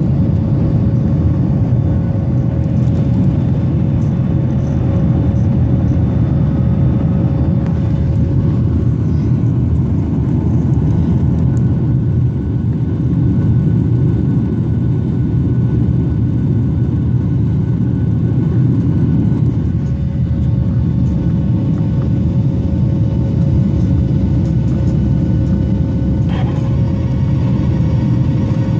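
Twin-engine jet airliner's engines at takeoff and climb power, heard from inside the cabin over the wing: a loud, steady rumble with a faint steady whine above it.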